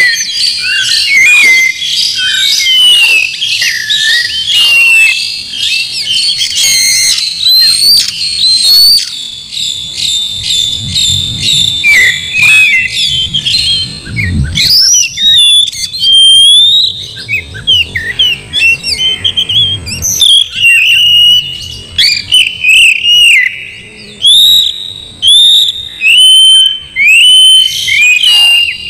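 Oriental magpie-robin singing in full, continuous song: a loud, varied run of whistled phrases, slurred glides and rapid chattering notes. In the later part the song comes in shorter phrases with brief pauses between them.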